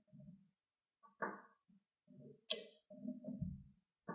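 Faint clicks and knocks from a half-inch drive click-type torque wrench being worked on a fastener, with one sharp click about two and a half seconds in.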